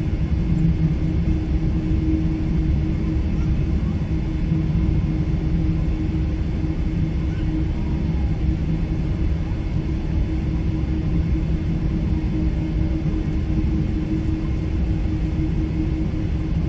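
Boeing 777-300 cabin noise heard from the rearmost seat: a steady low rumble of engine and airflow, with a constant low hum running through it.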